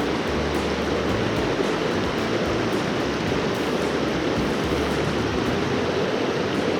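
Mountain creek water rushing over rocks in fast pocket water, a steady, even rush.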